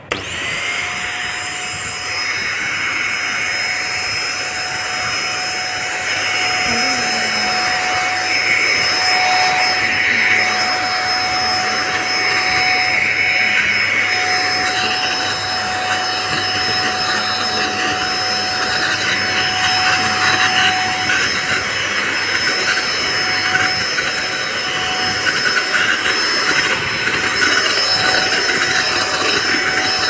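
Handheld vacuum cleaner switching on and then running steadily with a high whine, its crevice nozzle drawn over fabric sofa upholstery.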